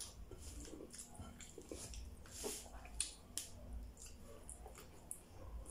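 Close-miked eating sounds: a man chewing a mouthful of rice and vegetables eaten by hand, with scattered soft wet clicks and smacks of the lips and mouth.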